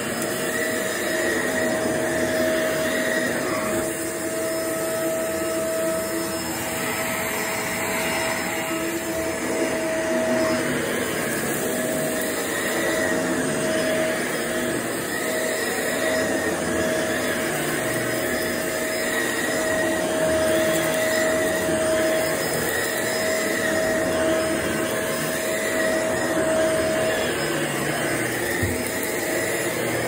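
Shark upright vacuum cleaner running while pushed back and forth over carpet: a steady rushing noise with a whine that fades in and out every second or two.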